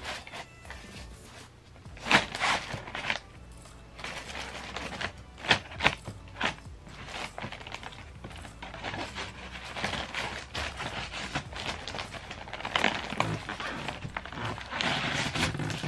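Brown kraft paper crinkling and rustling in irregular bursts as a cat lying on it shifts and a wand toy drags across it, with a few sharper crackles and denser rustling near the end.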